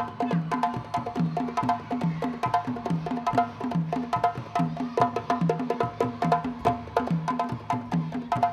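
West African drum ensemble playing a fast, steady rhythm: a low drum note repeating about twice a second under dense, higher, wood-like strikes.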